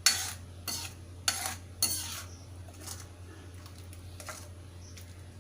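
A spoon stirring and scraping in a kadhai of simmering jaggery-sweetened herbal syrup, cooked just until the jaggery mixes in. There are sharp scraping strokes about every half second for the first two seconds, then only a few more.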